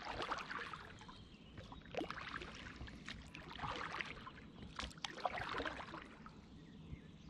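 Water lapping and trickling against the hull of a small inflatable boat as it turns slowly on a lake, with scattered light splashes and knocks.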